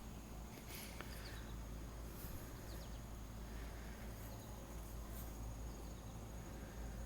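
Outdoor garden ambience: a steady high-pitched insect trill, with a few faint bird chirps and a low rumble of wind.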